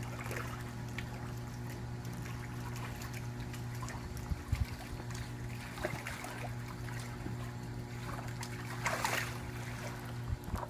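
Pool water splashing and dribbling as a black Labrador paws at it from a floating foam surfboard, with a louder splash about nine seconds in. A steady low hum runs underneath.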